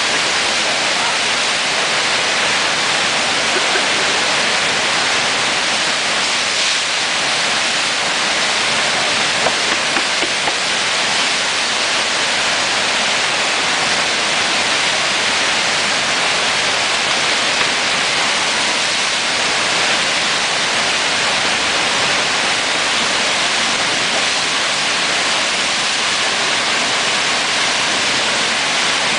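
Fast whitewater of the Eisbach's standing surf wave rushing and churning: a loud, steady wash of water noise.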